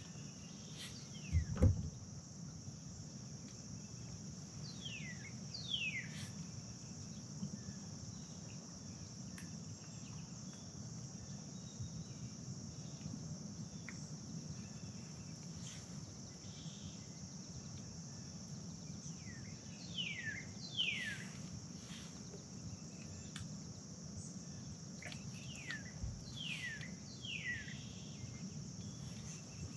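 Quiet outdoor ambience: a steady high-pitched insect chorus, with short downward-sweeping bird calls in a few groups (about five seconds in, around twenty seconds, and several near the end). A single low knock about a second and a half in.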